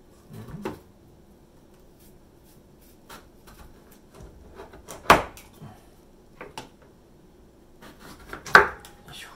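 Kitchen knives cutting and peeling ripe persimmons on a wooden cutting board: scattered light taps and scrapes, with two sharp knocks of a blade on the board, about five seconds in and again near the end.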